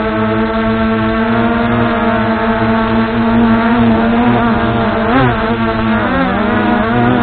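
Brushless motors and propellers of an MJX Bugs 2W quadcopter whining steadily in flight, heard close up from the action camera the drone carries. The pitch wobbles briefly about five seconds in and dips about a second later as the motors change speed.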